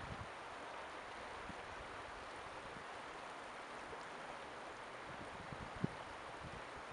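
Shallow creek running over rocks, a steady rushing of water. A few soft low thumps of wind on the microphone, the strongest near the end.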